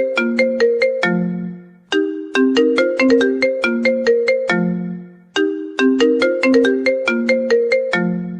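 iPhone ringtone playing: a short melody of quick notes over a lower held note, repeating about every three and a half seconds.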